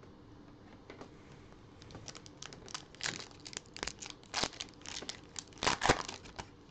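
Shiny wrapper of a NBA Hoops Premium Stock trading-card pack being torn open and crinkled by hand: a run of irregular crackles and rips starting about two seconds in, loudest shortly before the end.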